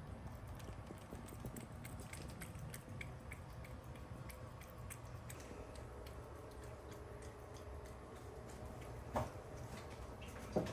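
Cat eating from a steel bowl: a run of small clicks as it eats, with two louder knocks near the end.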